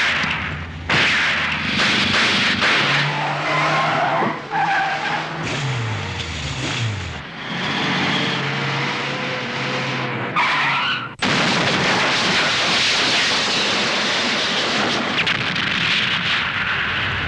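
Car-chase soundtrack: car engines running with tyres squealing, and an engine note that falls in pitch as a vehicle goes by. After an abrupt cut about eleven seconds in comes a loud, steady rush of noise from the car's crash and fireball explosion.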